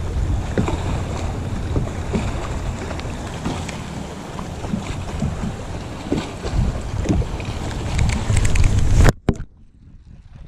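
Wind rumbling on the camera microphone, with light clicks and rubbing as hands work a baitcasting reel close to it. About nine seconds in there is a sharp knock, and the sound drops suddenly to a faint hush.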